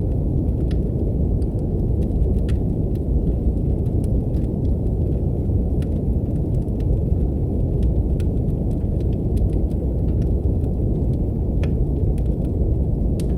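Steady brown noise, a deep hiss, with sparse pops and crackles of a wood fire in a fireplace scattered through it.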